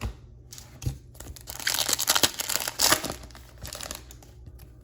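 Plastic-foil wrapper of a Bowman baseball card pack being torn open and crinkled: a couple of light taps, then about three seconds of dense crinkling that peaks in the middle.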